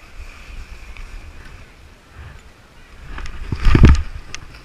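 Snowboard sliding over packed snow with wind buffeting the microphone, then a loud crash into the snow about three and a half seconds in as the rider falls.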